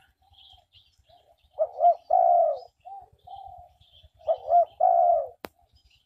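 Spotted dove cooing: two loud phrases, each two short rising-and-falling notes followed by a longer drawn-out note, a few seconds apart. Faint high chirps of small birds and a single sharp click near the end.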